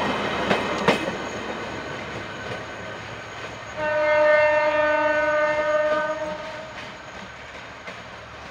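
Passenger train passing close, its wheels clacking over the rail joints, then rolling away with a fading rumble. About four seconds in, the train's horn sounds one steady blast of about three seconds, the loudest sound here.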